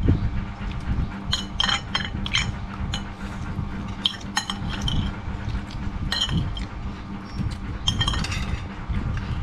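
Metal spoon clinking and scraping against a ceramic bowl during a meal: a dozen or so light, irregular clinks with a brief ring.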